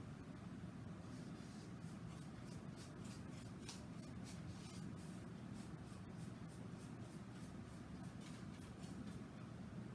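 Faint, irregular scratchy strokes of a paintbrush working acrylic paint on a canvas, many short strokes one after another over a low steady room hum.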